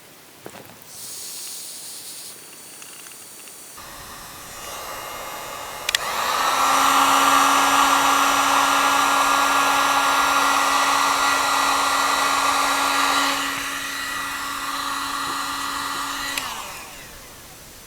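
Heat gun switched on with a click about six seconds in, its fan motor running with a steady whine; it gets quieter about seven seconds later and is switched off near the end. A shorter high hiss comes before it.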